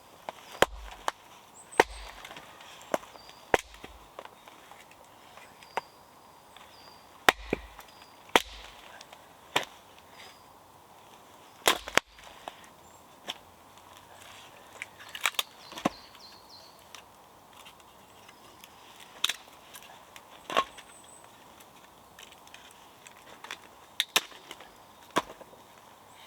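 Wood being chopped by hand: sharp, irregular knocks, roughly one every second or two, some with a dull thud beneath.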